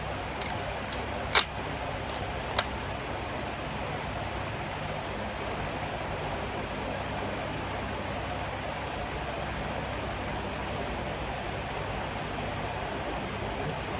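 Steady background hiss with a few light, sharp clicks in the first three seconds, the loudest about a second and a half in. No shot falls here.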